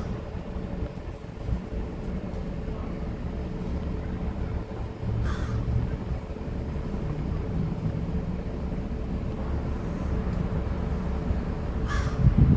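A crow cawing: short single caws several seconds apart, near the start, midway and near the end, over a steady low background rumble.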